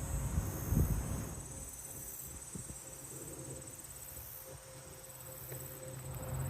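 Crickets trilling steadily in a high, finely pulsing tone, over a low rumble that swells briefly about a second in.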